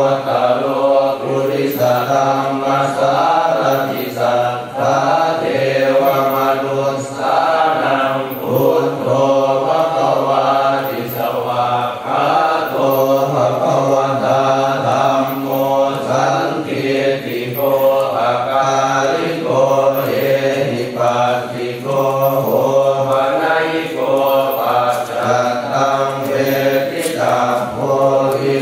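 Buddhist temple chanting in Pali, voices reciting on a steady monotone in short, even phrases with brief breaks between them.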